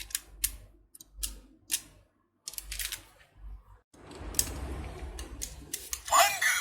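Plastic clicks and clacks from a Kamen Rider W Double Driver toy belt being handled, its parts snapping into place one after another, followed by a low hum and a brief loud pitched sound near the end.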